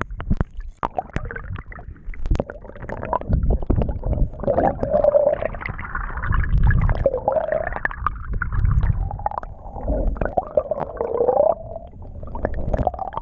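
Underwater sound picked up by a submerged camera: low rumbling water movement and gurgling, scattered clicks in the first few seconds, then muffled, wavering tones through the middle.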